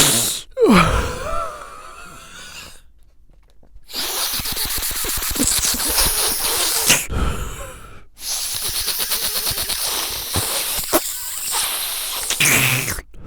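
A man sniffing and breathing hard through his nose: a brief voiced exhale with a falling pitch near the start, then, after a pause, two long stretches of rapid, fluttering nasal sniffing and snorting with a short break between them.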